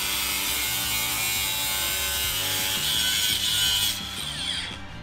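Angle grinder with a thin cut-off disc cutting sheet steel: a steady high whine and hiss that drops off about four seconds in.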